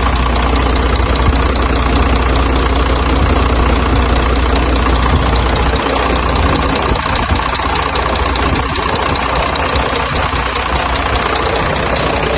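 Truck engine idling, heard close up at the open engine with its cooling fan running; the deep low rumble eases about halfway through. It is running so that a coolant leak at the air compressor's pipe can be traced.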